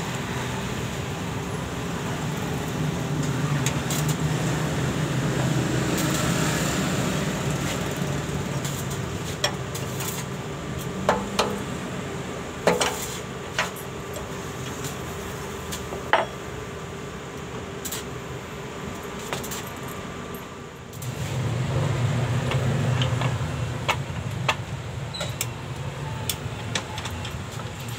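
Scattered sharp metal clinks of a wrench working on the fuel injector of a 186F air-cooled diesel engine, over a steady low hum.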